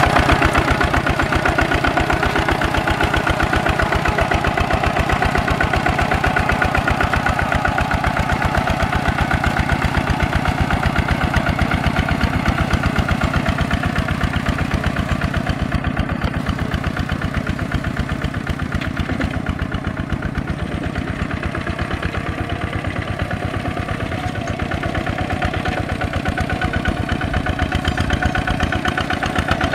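Kubota RT walking tractor's single-cylinder diesel engine running steadily under load, with a fast, even beat of firing pulses. It grows a little fainter around the middle and louder again near the end.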